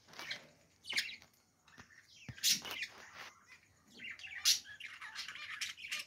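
Budgerigars chirping in short, scattered calls and chatter, with louder chirps about a second in, around two and a half seconds and around four and a half seconds.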